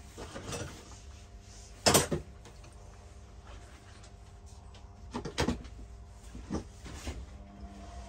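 Several sharp knocks and clatters of plumbing fittings and tools being handled, the loudest about two seconds in and a quick pair about five seconds in.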